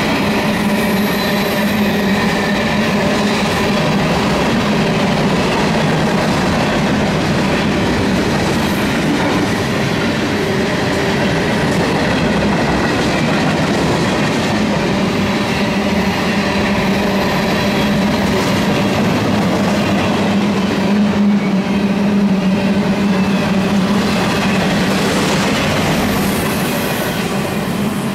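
Freight train of tank cars rolling past close by at speed: a steady, loud rush of steel wheels on rail, with steady humming tones. It eases right at the end as the last car goes by.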